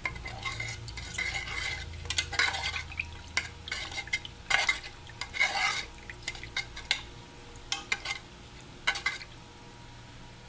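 A utensil stirring spiced broth in a metal pot: the liquid sloshes and splashes, with irregular clinks and scrapes against the pot. The strokes come thick at first, thin out after about six seconds and stop near the end.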